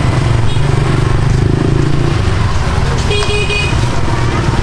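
Motor vehicle running steadily, with a brief horn toot about three seconds in.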